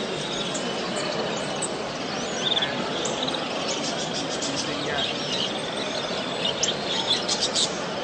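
Many small caged songbirds chirping and twittering, with a few quick trills and a cluster of sharp chirps near the end, over a steady background din.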